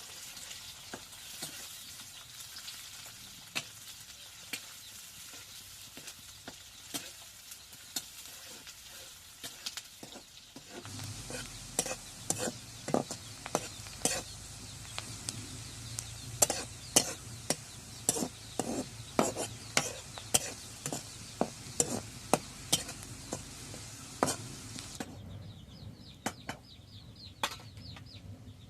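Food sizzling in hot oil in a cooking pot while it is stirred, the utensil clicking and scraping against the pot in irregular strokes that grow busier and louder partway through. Near the end the sizzle stops abruptly and faint bird chirps are heard.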